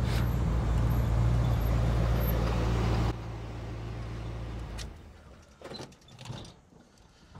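1989 Chevy Suburban's V8 engine running steadily as the truck rolls up and stops. The sound drops suddenly about three seconds in, and the engine shuts off about a second and a half later. A few light knocks follow near the end.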